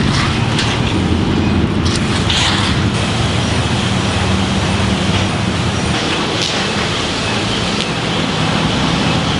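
A steady motor hum under a constant rushing hiss, unbroken throughout, with a few faint brief swishes.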